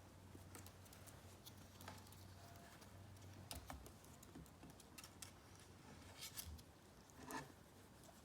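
A ferret moving about, making faint scattered clicks and light taps, a few stronger ones about three and a half seconds in and again near the end.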